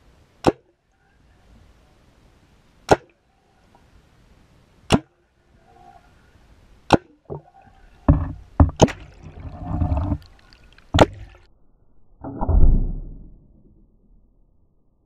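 CO2 paintball gun fired through a submerged barrel as a seismic source, heard underwater: four sharp cracks about two seconds apart. After them come a cluster of knocks with splashing and bubbling, and near the end a longer, lower rushing burst.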